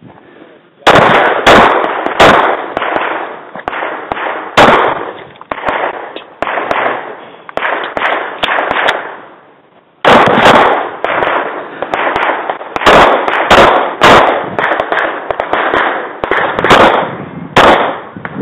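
Semi-automatic pistol fired rapidly in strings of shots, each crack trailing a short echo. There is a brief pause a little past halfway, then a second fast string.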